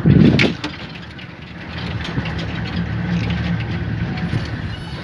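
Safari vehicle's engine running steadily at low revs, a low hum that settles in after a short loud burst of noise at the very start.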